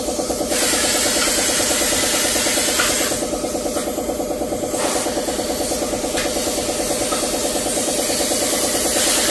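Gas cutting torch hissing as it cuts around a motorcycle muffler's shell; the hiss strengthens about half a second in, eases off around three seconds in, and comes back strongly about five seconds in. Underneath, a motor runs steadily with a fast pulsing beat.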